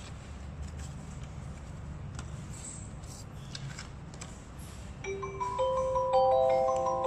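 Tmall Genie Fangtang smart speaker playing its power-on chime: a run of bright, ringing bell-like notes that starts about five seconds in, after low background hum and a few faint clicks.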